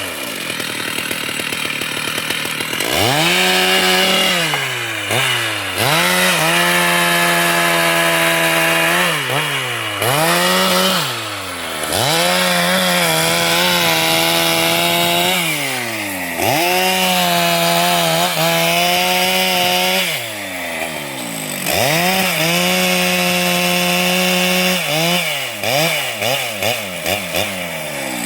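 Two-stroke chainsaw throttled up to full speed again and again, holding a few seconds each time and dropping back toward idle in between, as in cutting wood. Near the end the throttle is blipped in quick short bursts.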